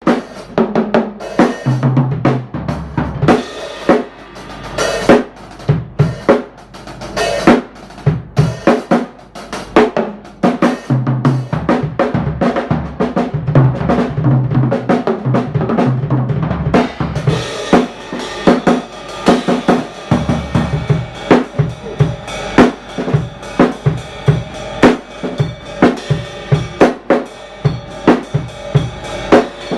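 Drum kit played freestyle as a sound check: rapid kick, snare and rimshot hits in a loose, shifting groove, with a steadier cymbal wash from a little past halfway.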